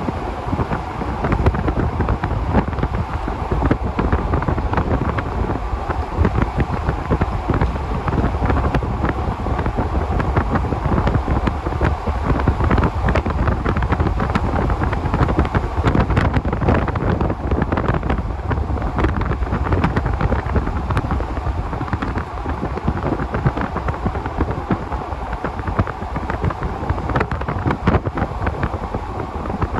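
Wind buffeting the microphone: a loud, steady rumbling rush that flutters constantly, with no pauses.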